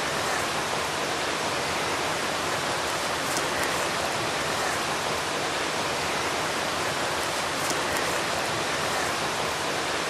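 Waterfall rushing in a steady, unbroken roar of falling water that drowns out quieter sounds.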